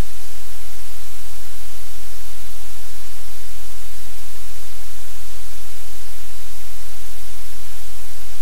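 Loud, steady static hiss over a low electrical hum, with nothing else standing out.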